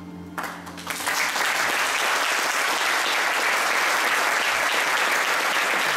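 Concert audience applauding, breaking out just as the last held note of the music dies away and quickly building to steady, full applause.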